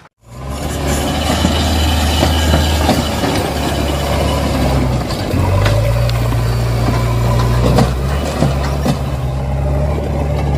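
Engine running steadily at idle, like a backhoe loader's diesel engine, a low drone whose pitch steps up about five and a half seconds in. A few short clicks or knocks sound near the end.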